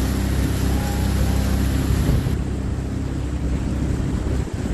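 A watercraft's engine running steadily under wind and water rush. The high rushing hiss drops away sharply a little over two seconds in, leaving the engine hum.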